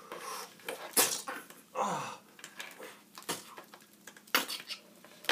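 Plastic action figures and their swords being handled, with a few sharp clicks and knocks as the pieces tap against each other and a hard surface.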